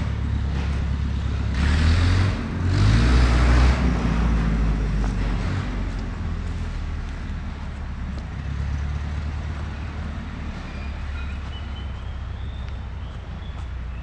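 Steady low rumble of wind buffeting the microphone, with a louder, hissier gust about two to four seconds in.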